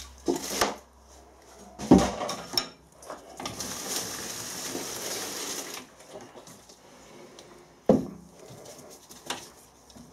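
Clanks and knocks of steel tools and lathe fittings being handled while setting up a lathe cut, loudest about two seconds in and again near eight seconds, with a steady hiss lasting a couple of seconds in between.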